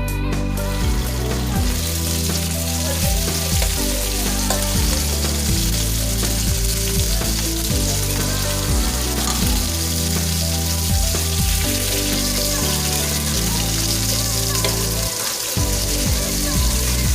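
Food sizzling steadily as it fries in a hot pan, with occasional stirring, over soft background music with low held notes.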